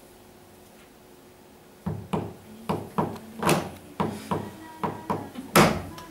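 After a quiet stretch, an irregular series of sharp knocks begins about two seconds in, roughly two a second, with a few strikes much louder than the rest.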